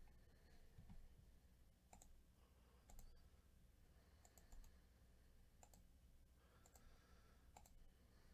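Faint clicks of a computer mouse and keyboard, single and in quick twos and threes every second or so, over a low steady hum.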